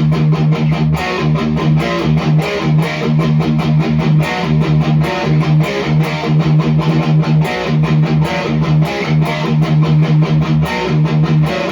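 Distorted high-gain electric guitar riff with rapid, even chugging strokes on low notes. It is played on an ESP guitar with a Seymour Duncan SH14 pickup through the Hiwatt Hi-5 amp's own gain, with no boost pedal engaged.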